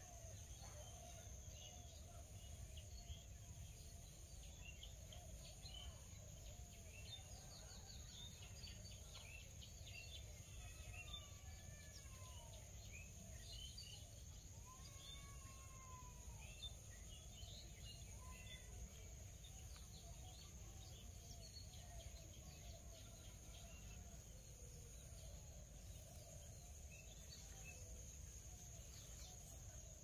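Faint outdoor ambience: scattered soft bird chirps and a few short whistled glides, busiest in the middle, over a steady high-pitched tone and a low rumble.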